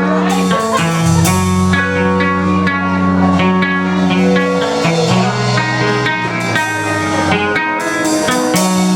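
Instrumental music: guitar playing with a bass line underneath.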